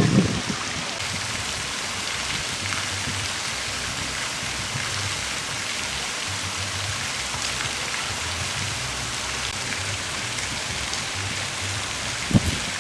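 Steady hiss of falling water, like rain, with a couple of short low thuds near the start and near the end.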